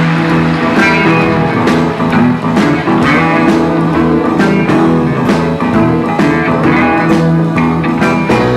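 Honky-tonk country band playing the instrumental intro of a song, guitar-led over bass and a steady drumbeat, with no singing yet.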